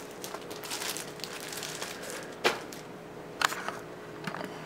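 Cardboard box and its packing being handled and shifted: faint rustling and scraping, with two sharp knocks about two and a half and three and a half seconds in.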